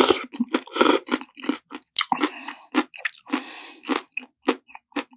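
A man chewing a mouthful of spaghetti: an irregular run of short chewing sounds, a few a second, with a couple of longer noisy ones. The eating sound is AI-generated by Google Veo 3 along with the picture.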